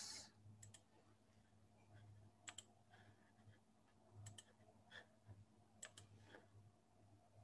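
Near silence with faint, sharp computer clicks, several of them in quick pairs, over a faint steady low hum.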